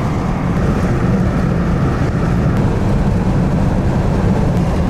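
Steady engine and road noise of a car driving.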